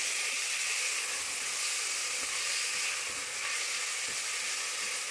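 Chopped tomato frying in hot oil with onion and spices in a stainless steel pot: a steady sizzle, with a wooden spoon stirring it.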